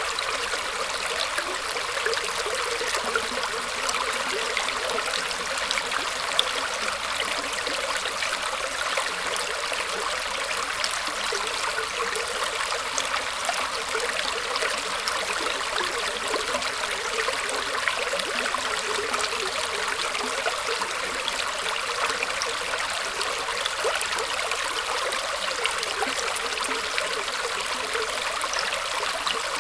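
Small stream of water flowing and trickling steadily, with a dense patter of small splashes and gurgles.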